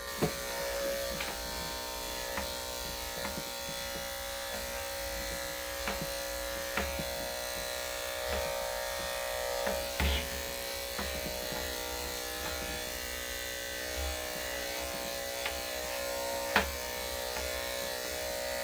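Corded electric dog grooming clippers with a number 5 blade running steadily while clipping a dog's belly, a constant even hum with a few light clicks as the blade moves through the coat.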